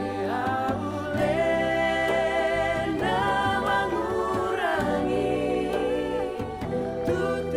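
Background music with singing: a vocal melody in long held notes over a steady low accompaniment.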